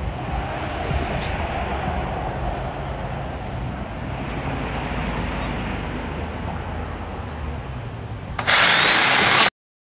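Steady outdoor ambient noise with a low rumble. About eight and a half seconds in it is overtaken by a loud, hard hiss lasting about a second, which cuts off abruptly into silence.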